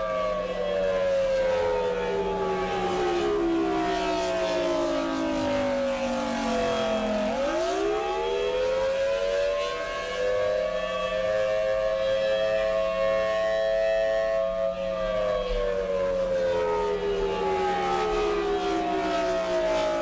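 Outdoor civil-defense warning siren sounding a wail during a scheduled test, two notes at once. Its pitch slowly falls, swoops back up about seven seconds in, holds steady for several seconds, then falls again near the end.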